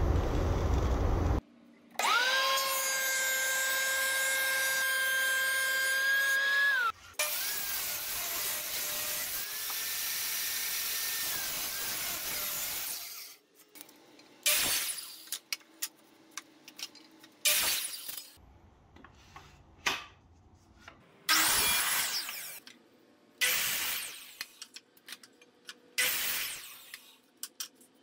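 Ryobi miter saw cutting pallet-wood boards. A steady whine with several tones runs for a few seconds near the start, then steady noise, then from about halfway a series of short separate bursts of sawing with quiet gaps between them.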